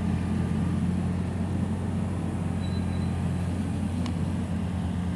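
A small engine running steadily at idle, a low even hum.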